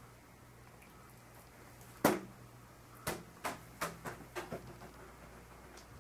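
A cat leaping and landing on a laminate floor while batting at a foil balloon's ribbon: one heavy thump about two seconds in, then an irregular run of quicker, lighter taps.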